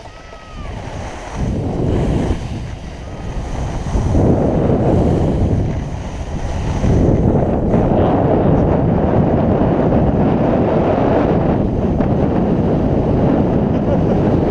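Wind buffeting the GoPro camera's microphone during a downhill ski run, mixed with skis scraping over icy, granular snow. The rushing builds in steps over the first seven seconds as speed picks up, then holds steady.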